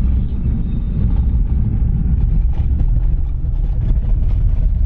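Steady low rumble of a moving road vehicle: engine and road noise while travelling in traffic.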